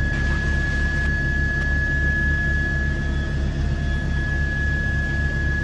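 Helicopter cabin noise: a steady turbine-and-rotor hum with a low pulsing and a constant high whine over a noisy hiss.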